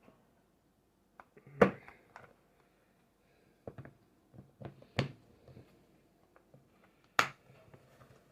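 Hard plastic drill-bit case and bit holder being handled: three sharp clicks a couple of seconds apart, with fainter taps and rattles between.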